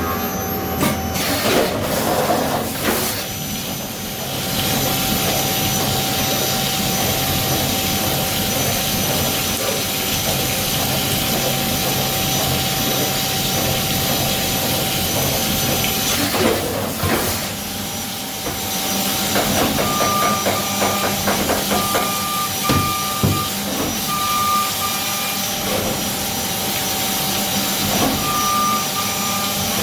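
CNC milling machine running, a steady hum and hiss with a constant whine, with a few brief knocks. From about two-thirds of the way in, a short high beep repeats roughly once a second.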